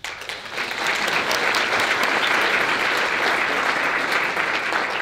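Audience applauding, the clapping swelling over the first second and then holding steady.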